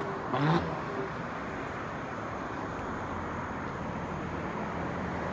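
A Mercedes-AMG GLE 43's modified exhaust fading away after a pass, with one short burble about half a second in. It leaves steady, faint road and traffic noise.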